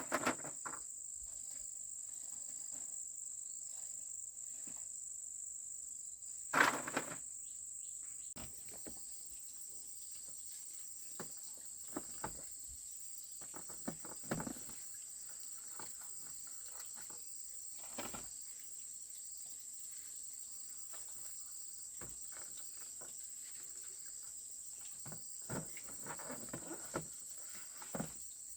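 Insects chirring in one steady, high-pitched drone, with scattered rustles and snaps over it, the loudest right at the start and about six and a half seconds in.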